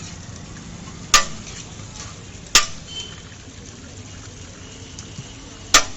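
Three sharp clanks of metal cookware struck together, irregularly spaced, each ringing briefly, as at a biryani stall being served from a big pot.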